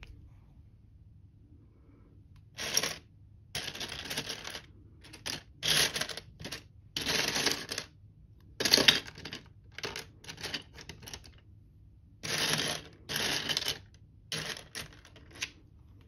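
Fingers rummaging through a tray of loose LEGO pieces, the small plastic parts clattering and rattling against each other. The clatter comes in a dozen or so short bursts with quiet pauses between them, starting a couple of seconds in.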